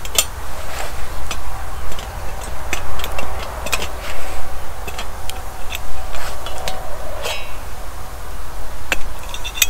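A metal spoon stirring and knocking in a steel camping mug, giving a string of irregular clinks, some with a short ring, over a low steady rumble.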